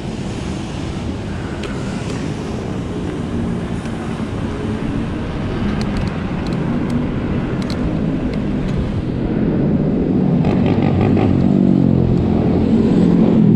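Wind and tyre rumble from riding a Zero 10x electric scooter, a dense low rush that grows gradually louder. A low steady hum joins in the second half.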